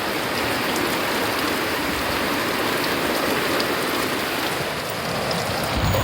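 Heavy tropical rain pouring steadily, a dense even hiss of falling water.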